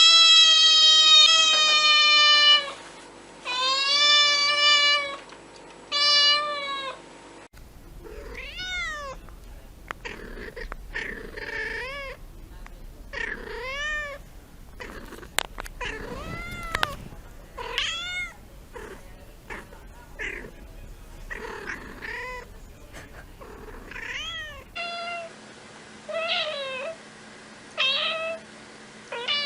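Domestic cats and kittens meowing, in three separate recordings. First come three long, loud meows. Then a run of many short, quick mews. Then single short mews repeated every second or two.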